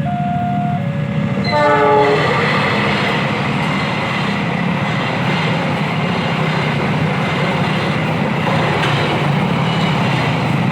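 Level-crossing warning siren sounding its two-tone alarm, switching between two pitches under a second apart. About a second and a half in it is cut by a short train horn blast. Then a train passes over the crossing with a steady, loud rumbling and rail noise.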